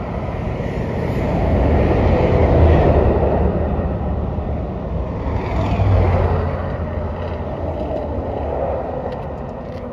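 Road traffic passing close by, a steady rumble and tyre noise that swells twice as vehicles go by, about a quarter of the way in and again past the middle.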